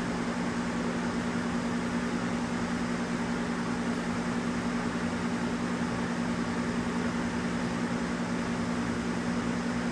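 Steady low electrical hum of two constant tones with an even hiss behind it, unchanging throughout. The recordist takes it for 'frequencies' coming from a hardwired smoke detector.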